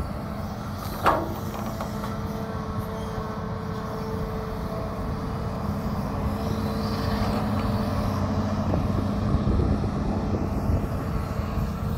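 Hitachi hydraulic excavator running steadily under load while digging and lifting wet mud, its engine and hydraulics giving a held humming tone. A single sharp knock sounds about a second in.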